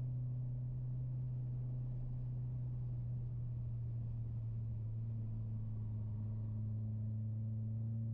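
Steady low drone inside a moving Mitsubishi Lancer Ralliart's cabin: engine and road noise held at an even pace, with a faint overtone that dips slightly about five seconds in.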